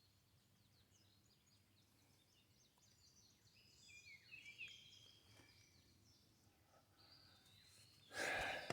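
Faint birdsong: short, high chirps and downward-sliding notes, busiest around the middle. Near the end a brief, loud rustle stands over it.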